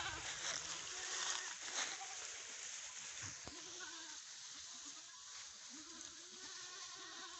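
Goats bleating faintly twice, a few seconds apart, over a steady outdoor hiss.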